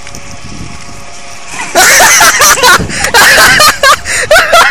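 A steady low background noise, then about a second and a half in, loud bursts of people laughing and shrieking close to the microphone.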